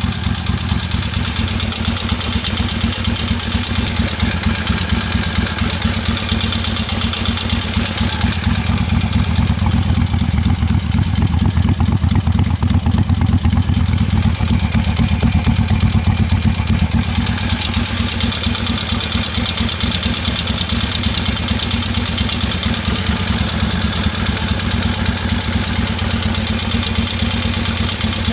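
1973 Harley-Davidson Ironhead Sportster's air-cooled V-twin idling steadily, with a knock from the front cylinder that the owner thinks calls for a valve adjustment.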